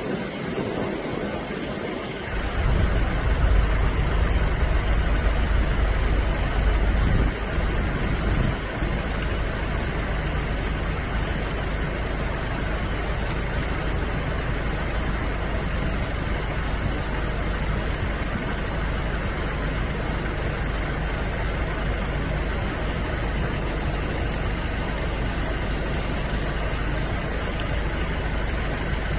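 Low, steady rumble of a motor vehicle engine running, starting about two seconds in and loudest for the next several seconds before settling.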